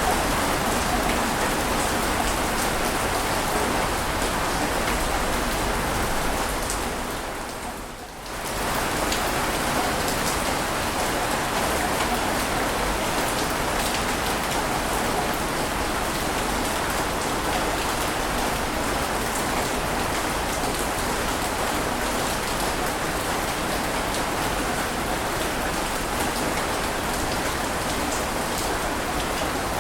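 Steady, even rush of water noise with no distinct swells. It dips briefly and comes back about eight seconds in.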